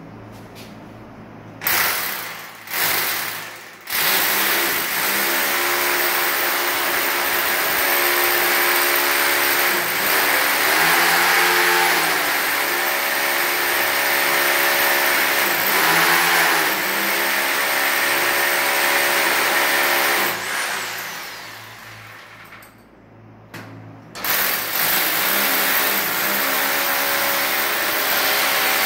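Electric drill boring into a ceramic-tiled wall. Two short bursts, then a long steady run of the motor that winds down with a falling pitch about twenty seconds in. After a brief pause, drilling starts again.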